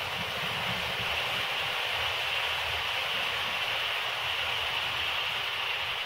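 Hornby Class 43 HST model train with a long rake of coaches running on the layout's track: a steady rushing hiss from its wheels and motor. The model has no sound fitted, so this mechanical running noise is all it makes.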